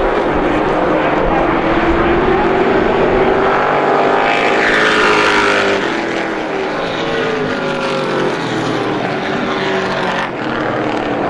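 A pack of stock pickup race trucks running at speed on a short oval, several engines at once. Their engine notes rise and fall as the trucks pass, loudest about four to five seconds in.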